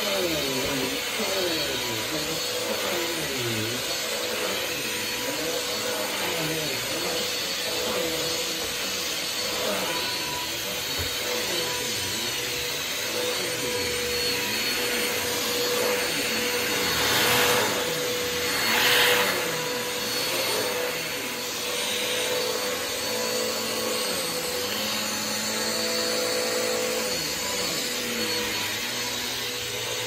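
Bissell PowerForce Compact 23T7-V bagless upright vacuum running while pushed back and forth over carpet. Its steady hum wavers up and down in pitch with the strokes, and it swells louder twice just past the middle.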